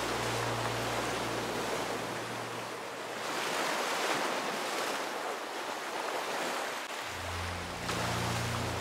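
Ocean surf washing up the beach and draining back, in slow swells of hiss. Background music's low notes sit under it at the start and come back about seven seconds in.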